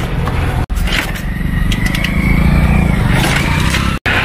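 A motor vehicle engine runs close by, growing louder in the middle along with a faint rising whine. The sound drops out for an instant twice.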